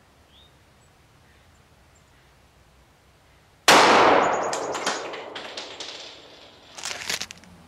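A single pistol shot from a Colt 1911 Government with a 5-inch barrel, firing a .45 ACP +P Hornady 200-grain XTP hollow point, about three and a half seconds in. It rings out and dies away over the next two seconds. A few sharp clicks follow near the end.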